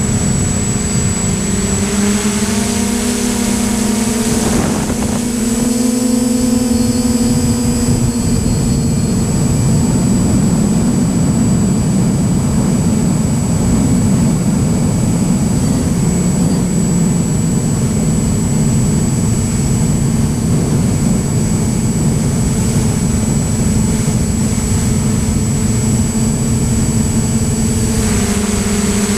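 Electric motors and propellers of a camera-carrying drone running steadily in flight, heard loud and close from the onboard camera, with the pitch shifting a little in the first few seconds and again near the end, and a thin high whine throughout.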